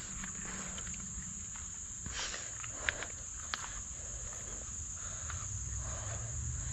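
Steady, high-pitched insect chorus that runs on without a break. Low rumble underneath, and two brief sharp clicks around the middle.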